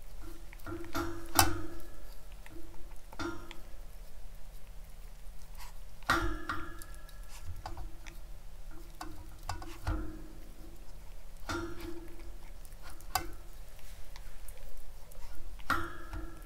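Maltipoo puppy eating from a clear plastic food bowl: chewing and crunching with irregular clicks, and every few seconds a sharper ringing knock as its muzzle or teeth strike the bowl.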